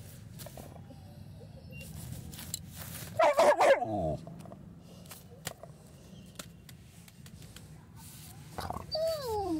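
Saint Bernard vocalizing: a loud, drawn-out grumbling call about three seconds in, and a shorter call sliding down in pitch near the end. The calls are a show of annoyance while she wags her tail.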